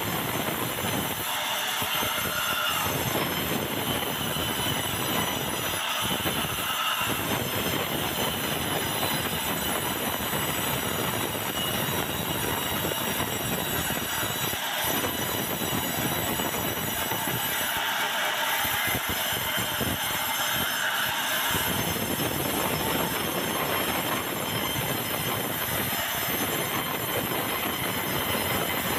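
Large band sawmill ripping a long beam of dry, very hard bengkirai (yellow balau) hardwood: the blade and machine run steadily in the cut, with a high whine over the mechanical noise.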